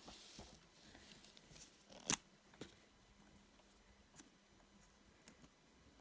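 Quiet handling of craft supplies on a table: one sharp click about two seconds in, then a few faint ticks.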